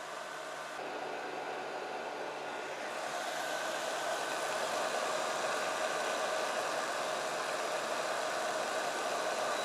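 Zero Breeze Mark 2 portable air conditioner running in boost mode: a steady rush of fan air with the compressor's hum under it. It grows louder from about a second in to about four seconds in, then holds steady.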